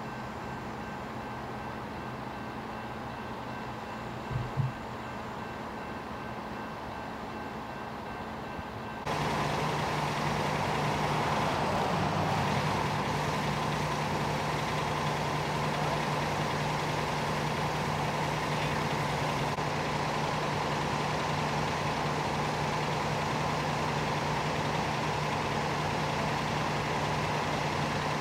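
Heavy diesel engines idling steadily, with two brief knocks about four and a half seconds in. About nine seconds in the sound jumps louder to a closer, stronger engine drone that holds steady.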